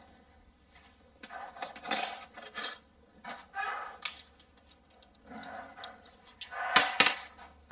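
Pencil scratching short lines onto a plasterboard wall, with sharp clicks and knocks as the level is set against the wall and moved. The loudest knocks come about two seconds in and again near the end.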